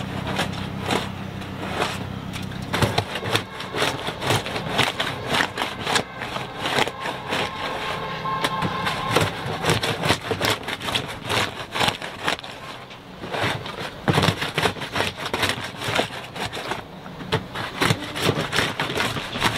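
A paddle blade scraping mussels and other marine growth off the bottom of an upturned dinghy: many rough scrapes and sharp clicks in quick succession. A steady low hum sits under the first few seconds.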